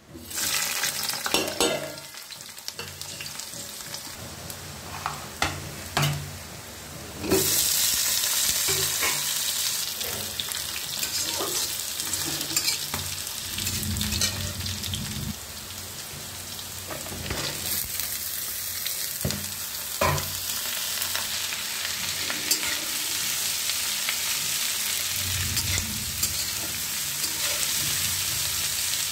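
Potatoes and then ivy gourd (kundru) frying in oil in a steel kadai. The sizzle jumps much louder about seven seconds in and stays loud, with repeated scrapes and clinks of a metal spatula stirring against the pan.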